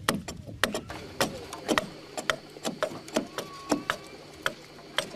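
Hand tools striking wood in traditional boat building: a series of sharp knocks, roughly two a second and unevenly spaced.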